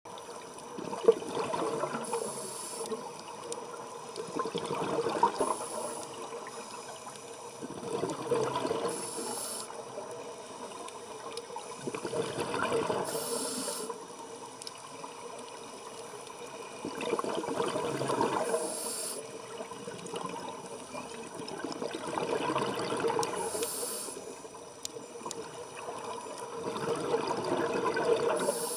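Scuba diver breathing through a regulator underwater: a gurgling rush of exhaled bubbles about every four to five seconds, each ending in a short hiss.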